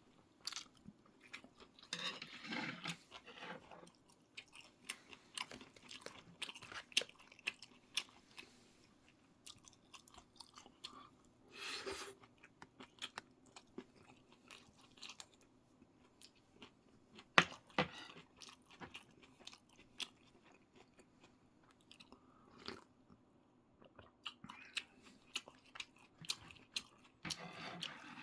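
Close-up chewing and eating sounds: a person chewing with crunchy bites, wet mouth noises and many small sharp clicks, the loudest about 17 seconds in.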